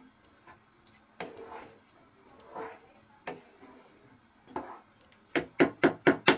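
Wooden spoon stirring thick rajma curry in a metal pot: soft scrapes and wet swishes every second or so, then a quick run of about seven sharp knocks near the end as the spoon is tapped against the pot.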